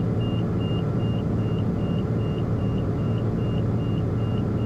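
Autopilot warning tone beeping over and over, about two and a half short high beeps a second, sounding after the autopilot dropped out with a trim annunciation. Under it runs the steady cabin drone of the Piper Malibu's turbocharged six-cylinder piston engine in flight.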